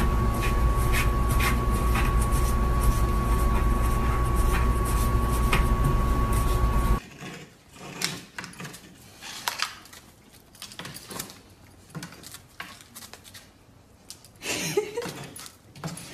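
A loud, steady hum with a thin high whine runs for about seven seconds and cuts off suddenly. After it come faint scattered taps and knocks, which fit a golden retriever's stick bumping against a door frame.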